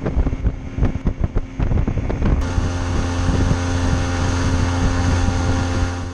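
Bass boat's outboard motor running under way, with wind noise on the microphone. Irregular knocks sound over it for the first two seconds or so. After that it settles into a steady engine drone.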